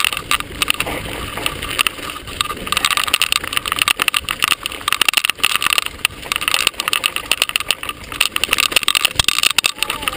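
Mountain bike rolling down a bumpy dry dirt trail: a continual irregular clatter and rattle of the bike over the ground, with steady tyre and riding noise underneath.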